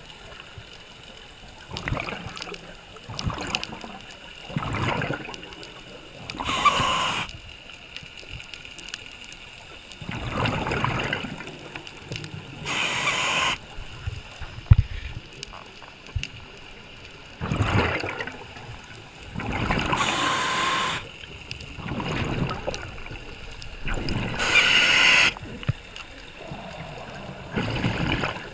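Scuba diver breathing through a regulator, heard underwater: sharp hissing inhales alternate with rumbling, bubbling exhales, about one breath every six to seven seconds. A single sharp click about halfway through.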